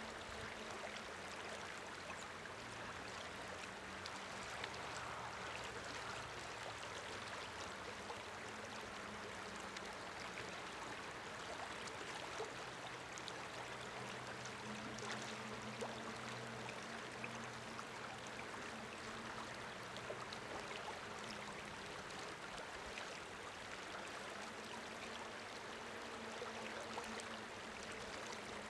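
Steady rush of a flowing creek.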